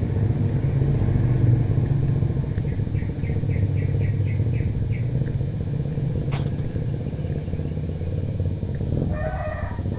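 Small motorcycle's engine passing by, a low hum loudest in the first two seconds and slowly fading. A run of quick high chirps, about four a second, sounds midway, and a short animal call near the end.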